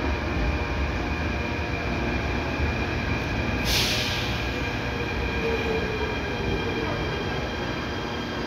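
Athens Metro train pulling into an underground station and slowing to a stop: a steady low rumble with a faint falling whine as it brakes, and a short hiss just under four seconds in.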